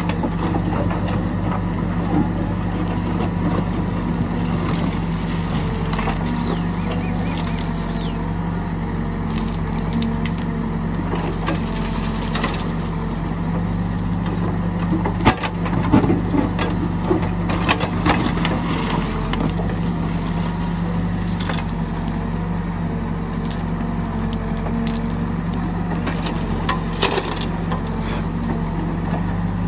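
Case 770 backhoe loader's diesel engine running steadily under hydraulic load as the rear bucket digs stony soil and swings loads of earth and stones up into a tractor trolley. Sharp knocks and clatter of stones stand out about halfway through and again near the end.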